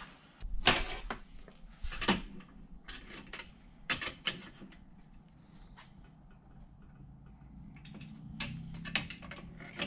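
Scattered metallic clanks and knocks of a steel bar and hand tools being handled and set in a bench vise. A few sharp knocks come in the first half, then a quieter stretch, then a cluster of clanks near the end.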